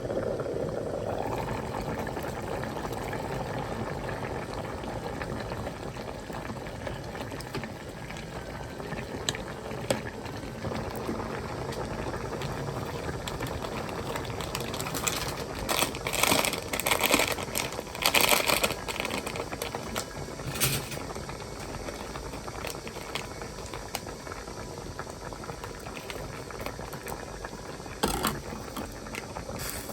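Pot of curry vegetables, potato and onion, boiling steadily in water with a constant bubbling. Louder bubbling spurts come about halfway through and again near the end.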